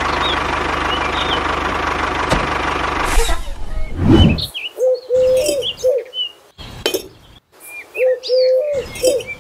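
A steady engine-like running noise for about three seconds that then cuts off, followed by birds chirping and a low cooing call heard twice.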